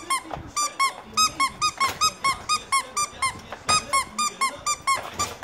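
A squeaky dog toy being squeezed over and over, short high squeaks at about four a second, stopping shortly before the end.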